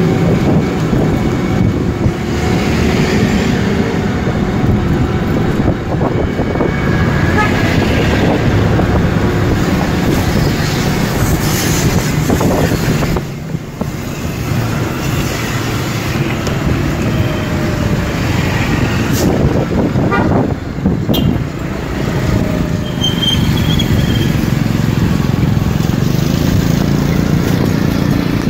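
Road traffic heard while riding along a city street, with a heavy low rumble of wind buffeting the microphone throughout. A few short high tones come through in the second half.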